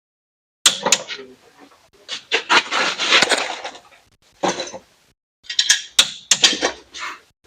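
Torque wrench ratcheting in short bursts with sharp clicks, tightening cylinder head bolts in sequence on the second pass to 60 foot-pounds.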